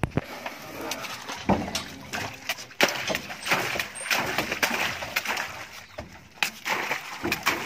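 Water splashing and sloshing in a banana washing tank as bunches of green bananas are dropped in and moved about, with irregular knocks and thuds from the handling.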